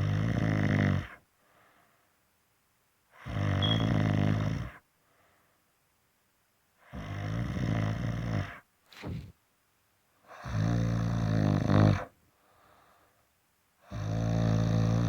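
Snoring: five long, buzzing snores about one every three and a half seconds, with faint breaths between them and a short snort just after the third.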